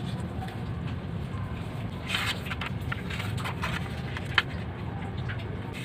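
Sheet of origami paper being handled and folded, giving light crinkles and crackles with a cluster about two seconds in and one sharp crackle later on. A steady low hum runs underneath.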